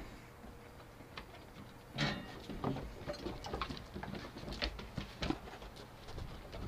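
Goldendoodle puppies scuffling at play on wooden deck boards: a scattered run of light taps and clicks from paws and claws.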